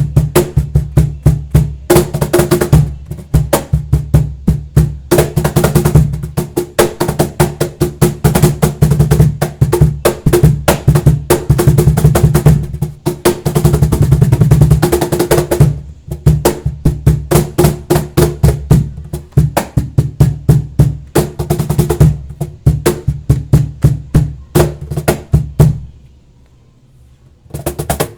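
Flamenco cajón played by hand: a fast rhythmic pattern of deep bass tones and sharp slaps, with dense rolls in places. The playing stops about two seconds before the end, with one last strike at the very end.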